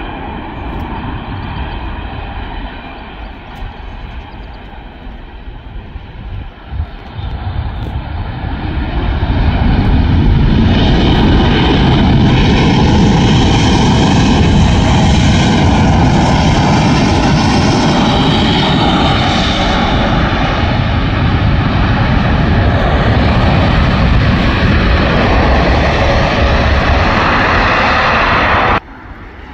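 Boeing 787 jet engines on a landing: a moderate rush on the approach grows into a loud, steady rush as the airliner touches down and rolls out along the runway, then cuts off abruptly near the end.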